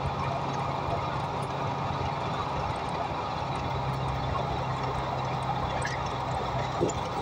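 Inside a Volvo hybrid city bus on the move: a steady low hum over an even rush of road noise, with a short knock near the end.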